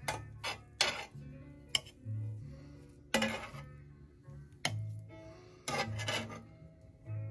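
A series of sharp clinks and knocks of dishes and cookware being handled, over background music with a steady bass line.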